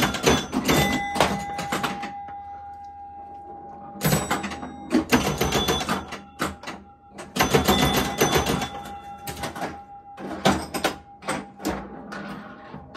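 1962 Gottlieb Flipper Clown electromechanical pinball machine in play: four bursts of rapid mechanical clacking as the score reels and switches fire, with ringing chime tones hanging on between the bursts.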